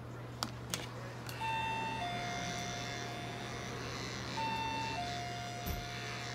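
Cordless electric pet hair clipper switched on about a second and a half in and running with a steady buzzing whine as it trims a cat's fur. Its pitch shifts between two steady notes. Two small clicks come just before it starts.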